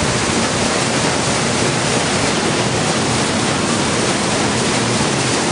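Stern paddlewheel of a steamboat churning the river, a steady rush of splashing water.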